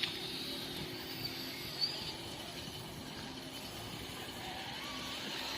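An RC scale crawler's small electric motor and gears whirring steadily as it drives along the trail, with a few sharp clicks in the first two seconds.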